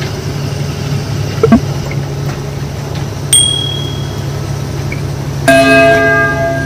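2019 Ashok Leyland goods truck's engine running steadily, heard in the cab. A single short bell-like ding comes about three seconds in. Near the end a vehicle horn sounds for about two seconds, the loudest sound here.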